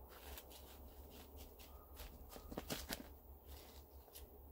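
Faint rustling and scattered small clicks of hands pressing potting soil around a cutting's roots in a small pot, with a few sharper ticks between two and three seconds in.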